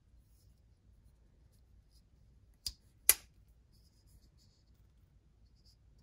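Enrique Pena X Series slip joint pocketknife's blade snapping against its backspring: two sharp clicks close together about halfway through, the second louder.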